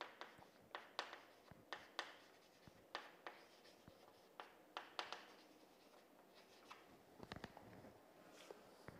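Chalk on a chalkboard: faint short scratches and taps as words are written and a graph is drawn, about two strokes a second.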